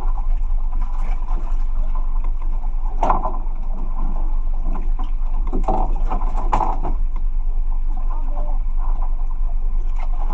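Steady low rumble aboard a small fishing boat at sea, with a few short knocks and clatters about three and six seconds in.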